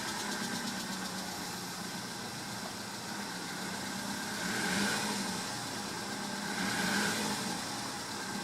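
Volkswagen Golf VI engine idling just after a start, with a knocking, rattling running noise. The running note swells briefly twice, about five and seven seconds in.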